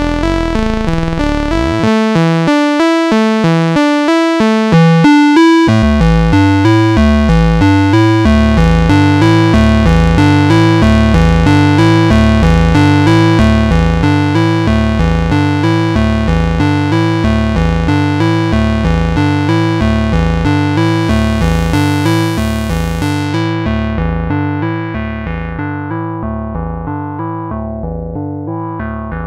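Moog Subharmonicon analog synthesizer playing a repeating sequenced pattern of notes over deep sub-oscillator bass. A few seconds in, the bass settles into a steady pulsing line. Near the end the tone turns darker and quieter as the filter cutoff is turned down.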